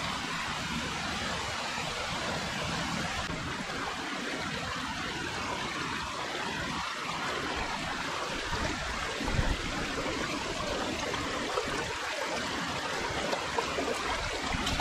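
Small fast-running creek rushing steadily over a rocky bed, with a brief low thump about nine seconds in.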